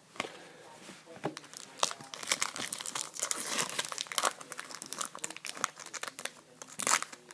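Trading card pack wrappers crinkling and tearing as packs are opened, a dense run of sharp crackles that is loudest near the end.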